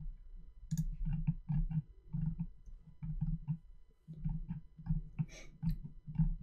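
Computer mouse being scrolled and clicked: an irregular run of soft clicks, each with a low knock, a few a second.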